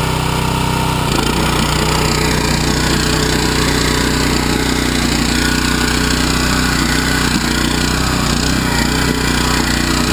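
Small single-cylinder petrol engine of a two-wheel walk-behind tractor running steadily at working throttle while its rear rotary tiller churns soil. The engine note changes about a second in as it is given more gas.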